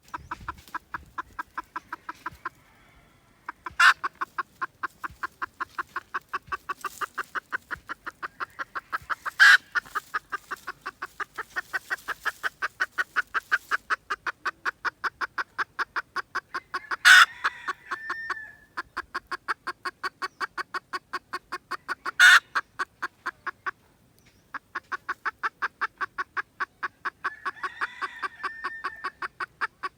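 Red junglefowl calling: a fast, even run of clucks, about five a second, broken by two short pauses. Four sharp, loud notes stand out above the clucking.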